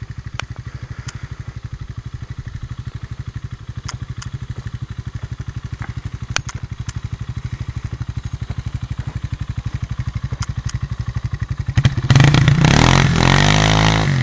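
Off-road motorcycle engine idling with an even, rapid pulse and a few sharp clicks, then revved hard about twelve seconds in, the pitch sinking back down near the end.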